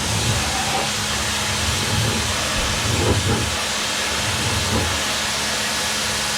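Pressure washer spraying: a steady hiss of the water jet, with a constant low hum underneath.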